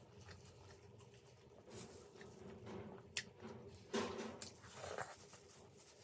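Faint, close-miked eating sounds: a person chewing veg momo dumplings, with a few short wet mouth noises and clicks, the loudest about four seconds in.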